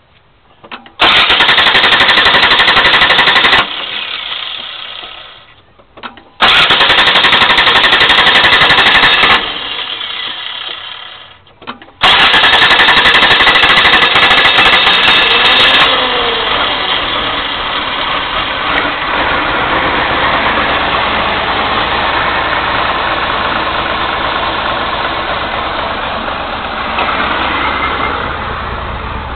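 1989 Chrysler New Yorker's 3.0L Mitsubishi V6, slow to start, is cranked by the starter three times. After each of the first two attempts the sound dies away over about two seconds. On the third it catches about sixteen seconds in and keeps running steadily, with the cylinder 6 plug wire pulled.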